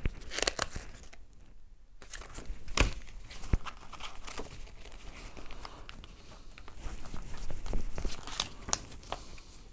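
Paper instruction booklet being handled and its pages turned: rustling and crinkling paper with a few sharp taps.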